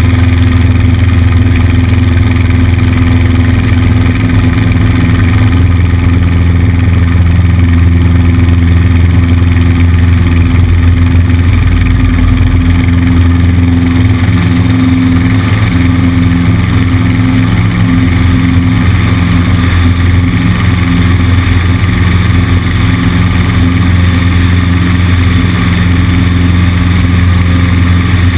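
Cessna 150's four-cylinder Continental O-200 engine and propeller running steadily at a constant loud drone, with wind rushing over the wing-mounted microphone.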